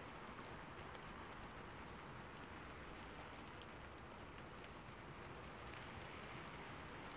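Rain falling on a rooftop, a recorded ambience track: a steady, faint hiss with scattered drop ticks.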